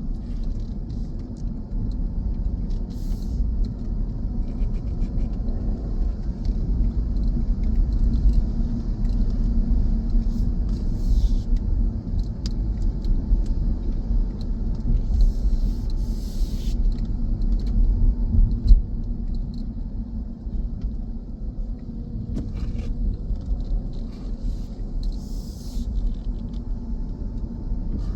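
Car driving along a road: a steady low rumble of engine and tyres with a faint high hiss above it and a few light ticks.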